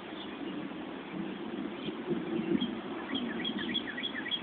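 A bird chirping over and over, several short falling chirps a second, thinning out midway and picking up again near the end, over a low rushing wind noise.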